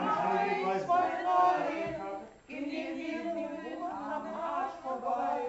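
A group of men and women singing together without accompaniment, with a brief break about two and a half seconds in.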